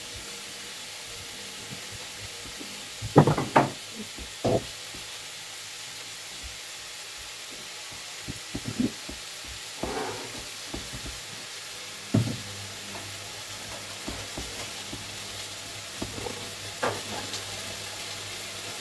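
Steady sizzle of meat-filled tortillas frying in a pan, with a few short knocks from handling on the worktop, the loudest a cluster a little after three seconds in.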